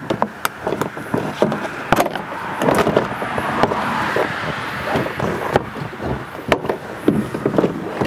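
Plastic interior trim panel of a Honda Odyssey front door being lifted up and off the door: a string of clicks and knocks over scraping and rustling, busiest in the middle.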